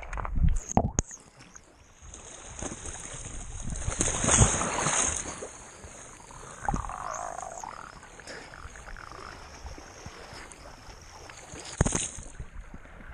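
Muffled rushing and splashing water in a canyon pool, with a few sharp knocks near the start and another sharp splash or knock near the end.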